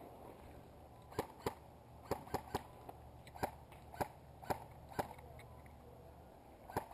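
Airsoft guns firing single shots: about ten sharp pops at irregular intervals, some in quick pairs, others half a second or more apart.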